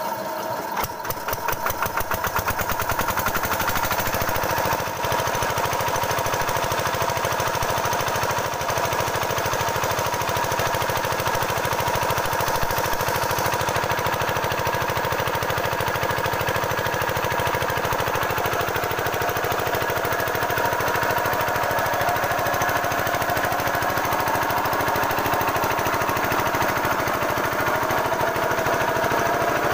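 Kirloskar AV1 single-cylinder diesel engine, driving a belt-coupled generator, catching and picking up speed over the first few seconds. It then runs steadily with a fast, even knocking beat.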